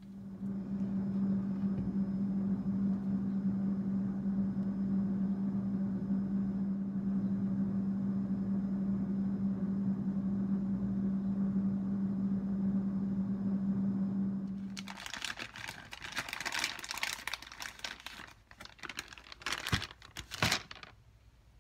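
A steady low machine hum that stops abruptly about fifteen seconds in, followed by irregular crinkling and rustling with a few sharp clicks.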